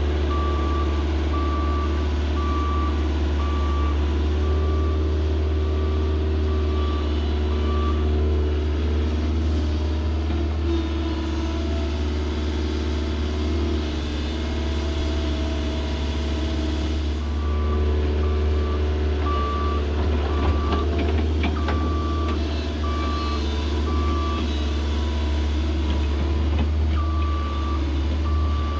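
Heavy diesel equipment running with its backup alarm beeping about twice a second; the beeping stops a few seconds in and starts again past the middle. A few sharp knocks come a little after the beeping resumes.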